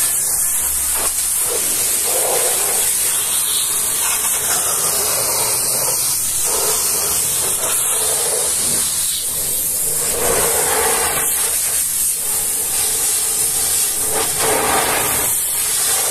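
High-pressure water jet from a pressure-washer lance blasting a truck's wheel rim and tyre: a loud, steady hiss of spray, its tone swelling and fading as the jet sweeps over the metal rim and rubber.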